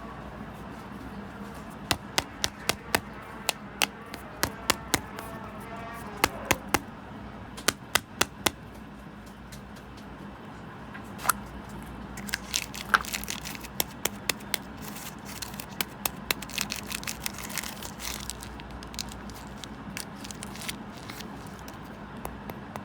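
Sharp clicks and taps from small objects being handled on a hard surface, coming in quick clusters over a steady low hum.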